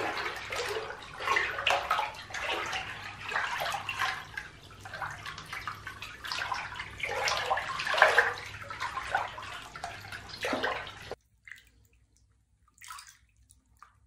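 Bath water sloshing and splashing in a filled bathtub as a hand swishes a bath bomb back and forth to dissolve it, in irregular swirls. The splashing then cuts off abruptly.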